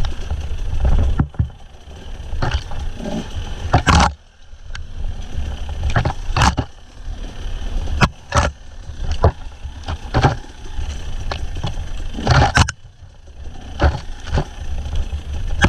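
Husqvarna TE300 two-stroke enduro motorcycle running while it rides over a rough, rocky trail, its engine mixed with a heavy low rumble. Repeated sharp knocks and clatters of the bike bouncing over rocks break through, the loudest about four, six and a half, eight and a half and twelve and a half seconds in.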